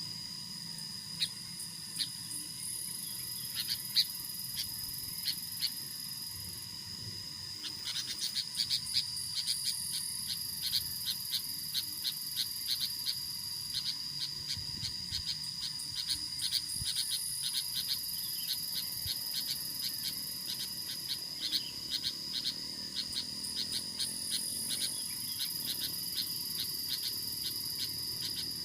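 Insect chorus: a steady high-pitched trill under a higher buzz that swells and fades every few seconds, with many short clicking calls that come quicker and thicker from about eight seconds in.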